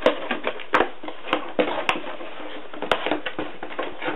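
Hands working plastic packaging fasteners loose from a cardboard box insert: irregular sharp clicks and taps with rustling and scraping of cardboard between them.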